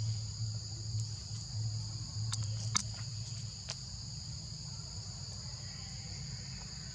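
Steady high-pitched insect chorus, two constant tones held throughout, over a low hum, with a few sharp clicks in the middle.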